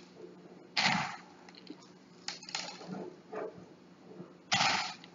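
Small coloured gravel scraping and rattling in short handfuls as it is pressed around a small cactus in a coconut-shell pot: three brief gritty rustles, the last one the loudest, near the end.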